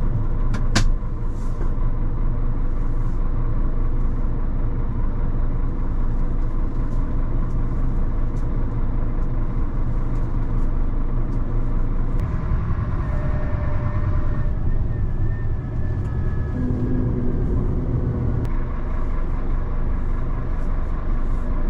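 A 26-tonne three-axle rigid lorry's diesel engine running steadily as the lorry gets under way. It follows a couple of sharp clicks right at the start.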